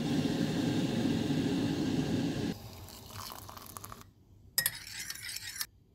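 Liquid being poured, loud for the first two and a half seconds, then fainter scattered noise with a few clicks.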